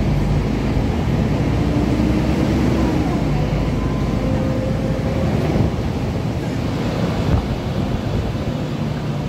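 Volvo B12BLEA beach tram on the move, its engine and loud radiator fan making a steady rushing noise, with a faint whine that rises and falls in the first few seconds.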